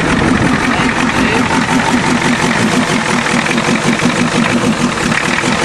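Ford diesel truck engine idling steadily just after starting, with an even, fast rhythmic clatter.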